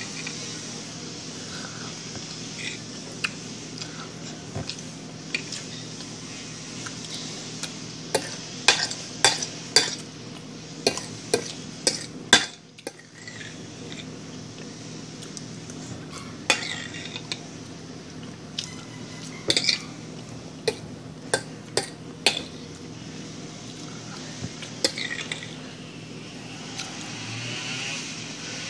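A fork clinking and scraping on a plate while eating eggs: scattered short, sharp clicks over a steady low hum.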